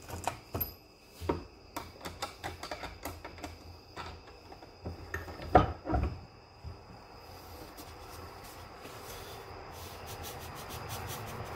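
Hand-loading clatter at a wooden bench: scattered clicks and knocks of brass 500 S&W Magnum cases and a single-stage reloading press being handled, the loudest knock about five and a half seconds in. After that the knocks stop and a soft, steady background noise slowly builds.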